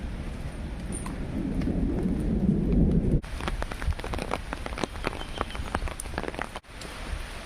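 Steady rain with a low rumble of thunder for about the first three seconds. After a sudden break, many separate raindrops tick sharply on a hard surface close by, and after another sudden break near the end only the steady hiss of rain remains.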